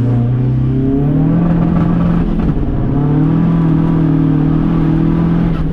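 VW Polo's TDI PD diesel engine pulling under load on the road, heard from inside the cabin: its note climbs about a second in and then holds steady.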